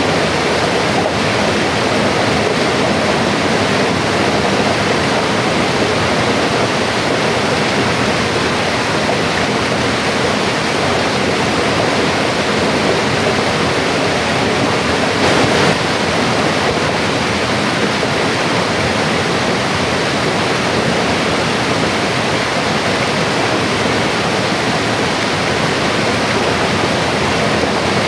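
Mountain river flowing steadily over rocks, a loud, even rush of water.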